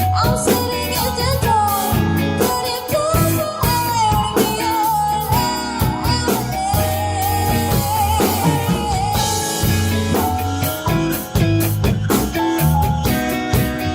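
Band playing a rock song: drum kit, bass and guitar under a wavering, sliding lead melody line.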